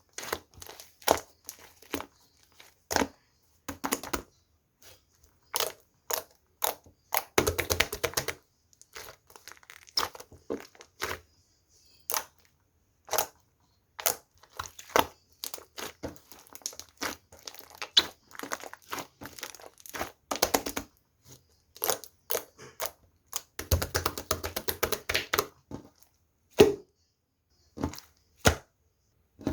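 Hands squeezing, poking and pulling a mugwort rice cake slime, making irregular sharp pops and clicks, with two longer runs of dense crackling, one about seven seconds in and one a little past the middle.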